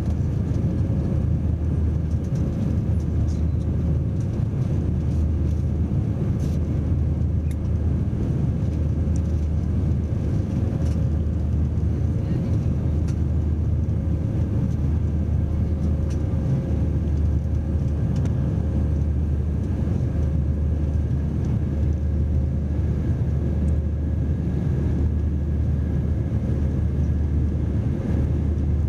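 Cabin noise inside an Airbus A319 climbing out after takeoff: the jet engines run at climb power as a steady low drone, with a faint steady whine above it.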